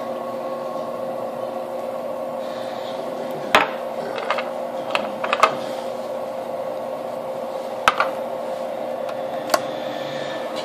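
Steady hum of a Presto Pizzazz pizza oven running, its tray turning under the heating element. A few sharp clicks and taps come through the middle of the hum.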